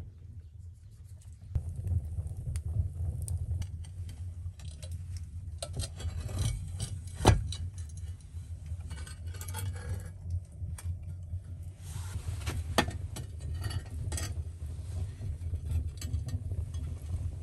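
A rusty cast-iron fireplace door and frame being handled and set in place, with metal clinks and scrapes against wood and stone. There is a sharp knock about seven seconds in and another near thirteen seconds, over a steady low rumble.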